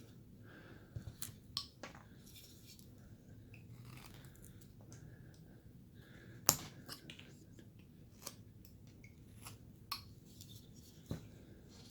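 Carving knife slicing and shaving basswood in short, irregular cuts, with one louder, sharper cut about six and a half seconds in.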